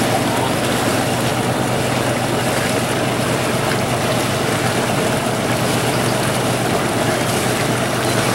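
Steady low engine hum under a broad rushing noise, consistent throughout: a tall ship's auxiliary engine running as it comes alongside to dock.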